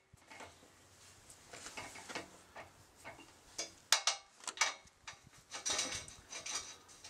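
Scattered metallic clicks and knocks, with a few short scrapes about two thirds of the way in, from handling a Milwaukee M18 Fuel magnetic drill and its annular cutter on a steel plate.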